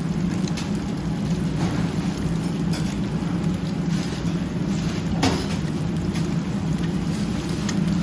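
Scallion pancakes frying at a street stall: a steady sizzle over a loud low hum, with one sharp clink of a utensil just past five seconds in.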